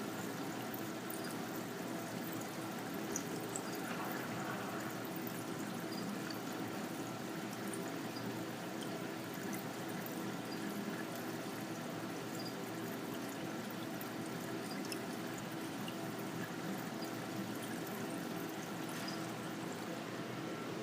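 Aquarium-section ambience: the steady trickling and splashing of water from many fish-tank filters over a steady hum, with a few faint ticks.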